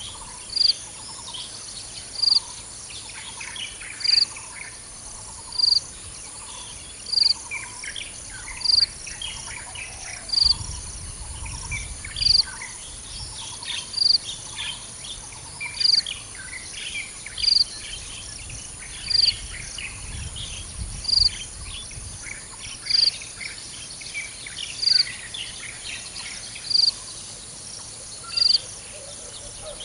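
Birds and insects calling: a short, loud high note repeats about every two seconds over scattered bird chirps and a steady high insect drone.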